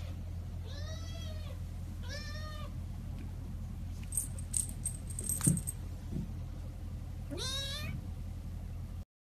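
A kitten meowing three times: two short meows that rise and fall, about a second and two seconds in, then a rising meow near the end. A low steady hum runs underneath, and a few faint clicks and jingles come in the middle.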